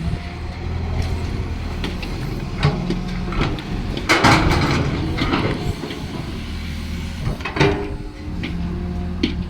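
Excavator diesel engine running steadily, with a loud noisy burst about four seconds in and a few sharp knocks near the end as the machine works.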